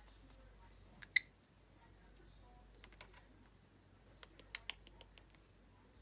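Green-cheeked conure's beak clicking and nibbling against fingers: one sharp click about a second in, then a quick run of small clicks in the second half.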